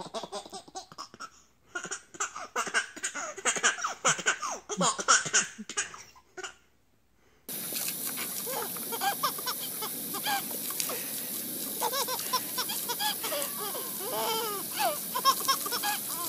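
A baby giggling and laughing in quick bursts. After a short break about seven seconds in, a garden hose sprays with a steady hiss while the laughter goes on over it.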